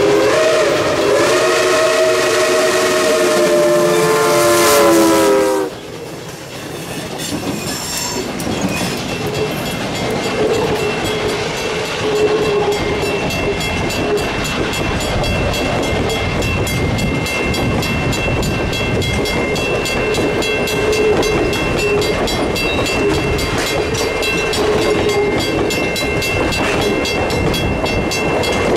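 Reading & Northern 425, a Baldwin 4-6-2 steam locomotive, blowing its home-built three-chime whistle: a long chord of several notes that cuts off sharply about six seconds in. Then its passenger coaches roll past with steady wheel-on-rail clatter.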